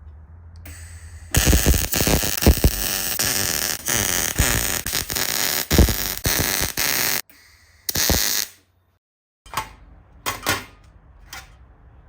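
MIG welder welding a small sheet-steel panel: a long crackling, buzzing run of about six seconds, then a shorter run, then a few short bursts near the end like tack welds.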